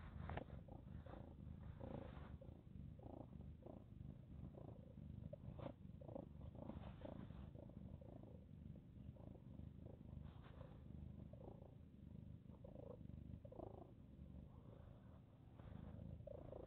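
Mother cat purring faintly and steadily while licking her newborn kitten clean, with short, irregular soft licking sounds over the low purr.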